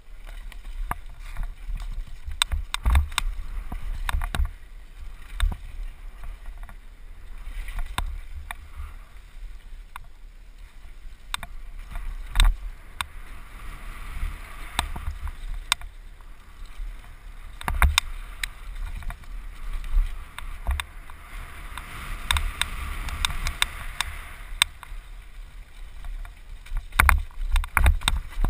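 Downhill mountain bike ridden fast over a rough dirt trail, heard from a helmet-mounted camera: a constant wind rumble on the microphone, with frequent irregular knocks and rattles from the bike over bumps.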